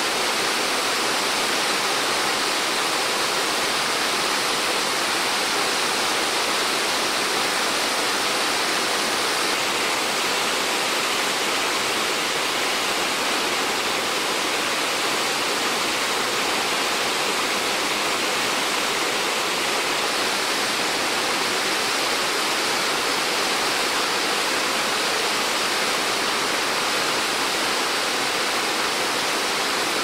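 Waterfall's steady rushing of falling water, unbroken and even throughout.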